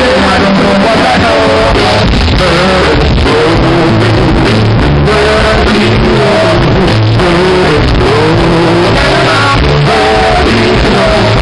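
Live band playing with singing into microphones, a loud, rough recording with heavy bass and melodic vocal lines over the band.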